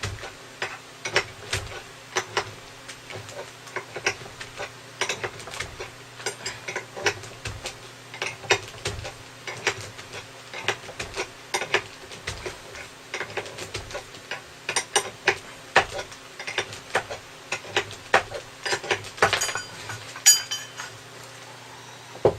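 Irregular metallic clinks and taps of hand tools on metal scooter parts, about one to three a second, as a stubborn part in the rear of a Honda PCX150 is worked loose. A faint steady low hum runs underneath.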